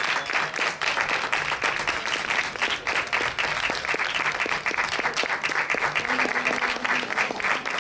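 A small crowd applauding steadily, with a diatonic accordion playing faintly underneath.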